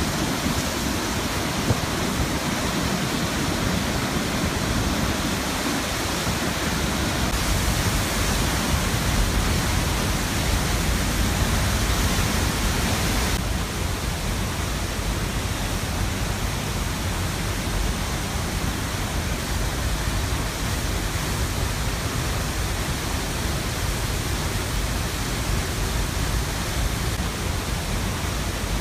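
Large waterfall in heavy flow, water crashing over rock in a loud, steady rush. Its tone shifts slightly a quarter of the way in and again a little under halfway through.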